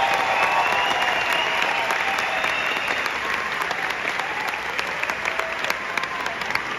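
Concert audience applauding and cheering at the end of a song, the applause slowly dying down.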